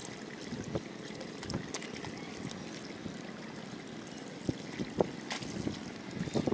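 Shallow water in a flooded rice paddy trickling and sloshing softly as a barefoot person moves in it, with a few small sharp ticks of water or mud.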